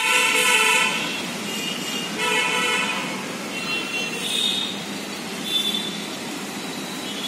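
Vehicle horns honking: a longer blast at the start and another about two seconds in, then several short, higher toots, over a steady background noise.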